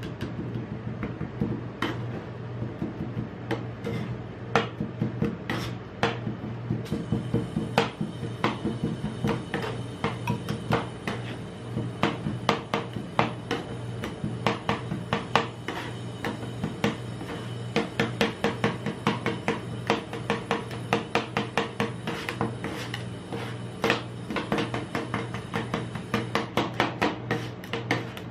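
Two metal spatulas chopping blackberries into ice cream base on a steel cold plate: rapid, irregular clicks and taps of metal on metal, with some scraping and a steady low hum underneath.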